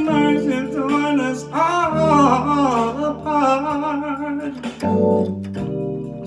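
A man singing a slow melody into a microphone over guitar accompaniment, his voice sliding between notes. The voice drops out near the end, leaving the sustained guitar chords.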